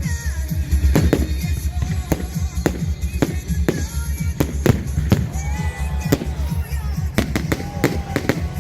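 Fireworks going off in many sharp, irregular bangs over loud music with a heavy bass.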